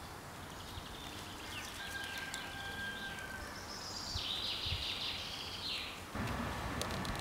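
Woodland birds singing over quiet forest ambience, with a long steady whistle about two seconds in and a busy phrase of song from about four seconds. Just after six seconds the background switches abruptly to a louder, steadier hiss.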